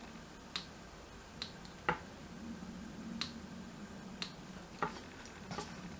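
Craft knife blade cutting a thin roll of polymer clay into small pieces, each cut ending in a short sharp click of the blade on the hard work surface: about seven clicks, unevenly spaced at roughly one a second.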